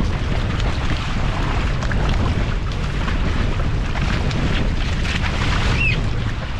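Wind buffeting the microphone, with water rushing and splashing against a Hobie Cat catamaran under sail.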